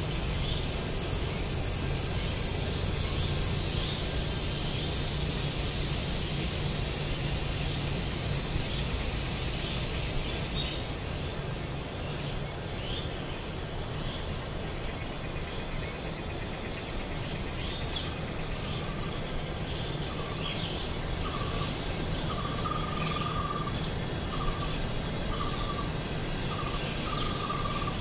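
Steady high chorus of insects trilling, thinning out about halfway through, with a short note repeated over and over from about two-thirds in and a couple of brief falling bird whistles, over a steady low background hiss.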